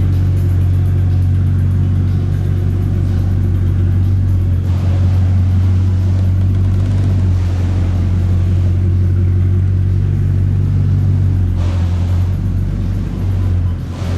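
Bugatti Chiron Sport's quad-turbo 8.0-litre W16 engine running steadily, a low, even drone with little change in pitch.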